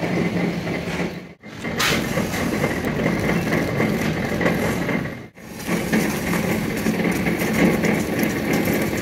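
Engine running steadily with a low hum, cutting out briefly twice.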